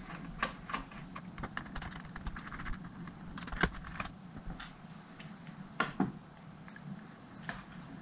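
Irregular clicks and taps of small laptop parts being handled, with a sharper knock about three and a half seconds in and two close together around six seconds.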